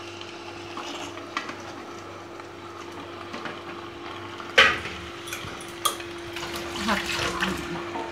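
Raw chicken pieces being settled by hand into a pot of masala: quiet wet handling noises, with one sharp knock against the pot a little past halfway and a few lighter clicks after it. A steady hum runs underneath.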